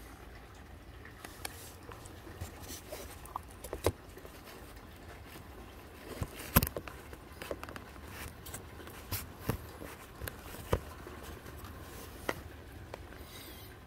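Light rain: scattered, irregular raindrop taps over a faint steady hiss, with one sharper tap about six and a half seconds in.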